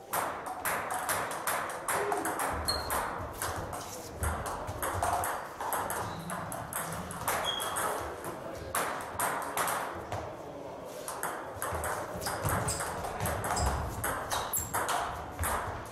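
Table tennis balls clicking off bats and table tops in rallies on two tables at once, a quick irregular run of sharp taps.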